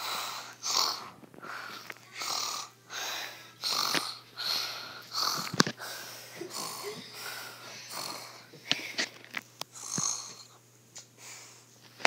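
A person making quick, wheezy breaths in a steady rhythm, about one every three-quarters of a second, as the sleeping plush's troubled breathing in a nightmare; the breaths thin out and fade near the end. A sharp click or knock cuts in about halfway.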